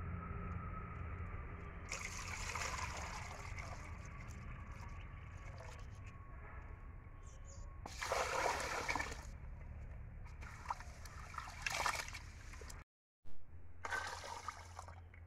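Water poured from aluminium cooking pots over raw rice and into another pot, splashing and trickling in several short pours as the rice is rinsed.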